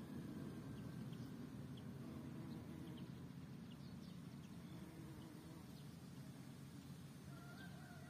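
Bumblebee buzzing with a low, steady hum while foraging on phacelia flowers.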